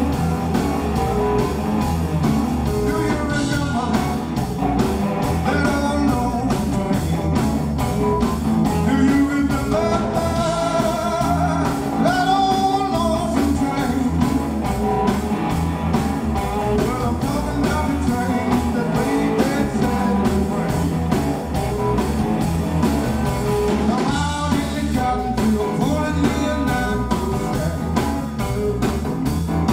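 Live electric blues band playing: a man singing over electric guitars, bass guitar and drums, with a steady driving beat.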